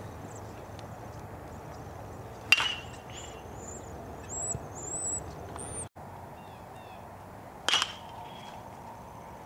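A baseball bat hitting pitched balls: two sharp cracks about five seconds apart, each with a brief ring.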